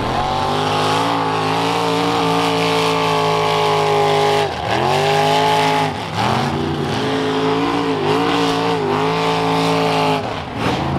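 Engine of a mud-bogging vehicle held at high revs as it pushes through a mud pit. The revs drop and climb back several times: about four and a half seconds in, at six seconds, and near the end.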